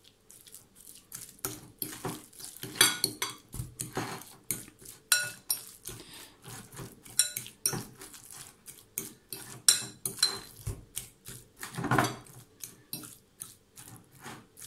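A metal fork clinking and scraping against a glass bowl in quick, irregular strokes as it mashes and mixes raw seasoned sausage meat, with one heavier knock near the end.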